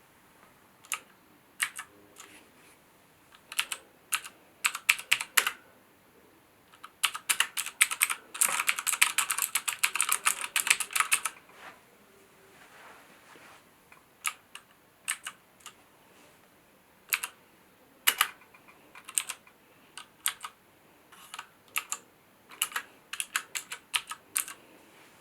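Typing on a HyperX Alloy FPS Pro mechanical keyboard with Cherry switches. Keys are struck in short scattered groups, then in a fast continuous run for about four seconds, then in small clusters again after a short pause.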